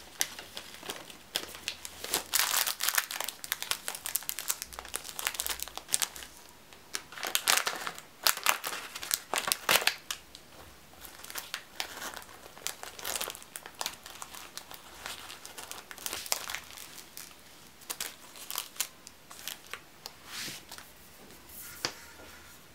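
Thin clear plastic snack bags and packets crinkling in irregular bursts as they are handled, filled with nuts and twisted shut.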